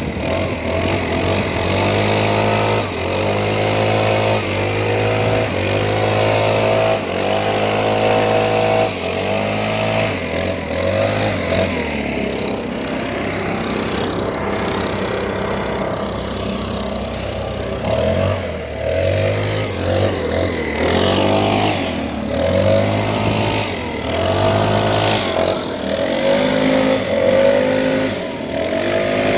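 Petrol leaf blower's small engine running, throttled up and eased back again and again so that its pitch rises and falls every second or two.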